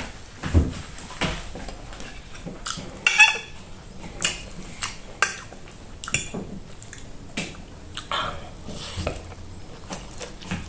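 Close-miked eating sounds: cutlery clinking and scraping on a plate, with wet chewing and mouth noises in between, in irregular sharp clicks.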